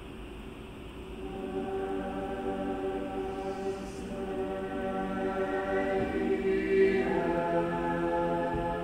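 A choir singing long, held chords, coming in about a second in after a quieter moment and moving to a new chord near the end.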